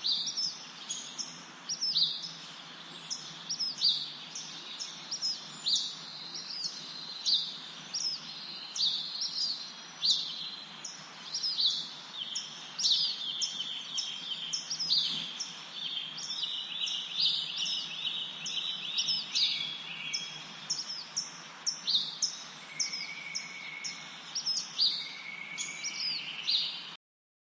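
Several small songbirds chirping, with many quick high chirps overlapping and a few longer, drawn-out notes, over a steady background hiss. It all stops abruptly near the end.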